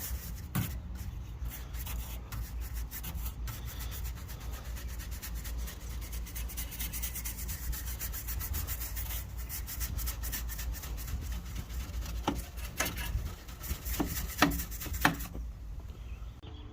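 A brush scrubbing caked dirt and grass off the fins of a residential AC condenser coil in fast, repeated strokes. A few knocks come near the end, and then the brushing stops.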